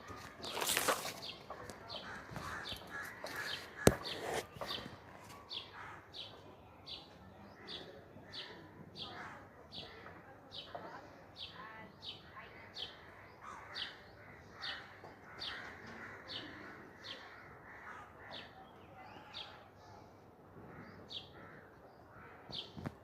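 A bird repeating a short, high chirp about twice a second, with other bird calls faintly behind it. A louder sound comes about a second in, and a sharp click about four seconds in.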